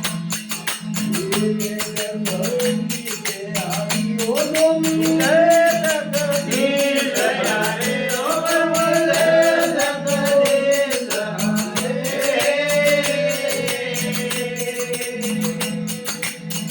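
Devotional folk bhajan music: a sung melody with long held and gliding notes over a steady drone and fast, even jingling percussion.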